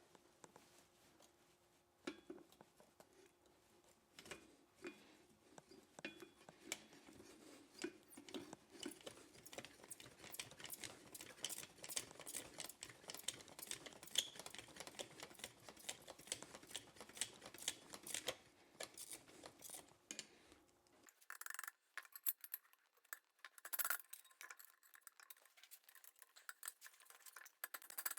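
Faint, irregular light clicks and small knocks, like metal tools being handled. The background hum drops out abruptly about 21 seconds in, and the clicking carries on after it.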